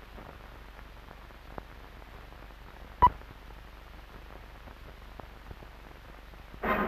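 Old film soundtrack running over blank leader: a steady low hum with faint crackle and hiss, and one sharp pop about three seconds in. Brass-led orchestral music starts right at the end.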